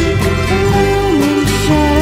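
Background music: a song with a held melody line gliding between notes over changing bass notes.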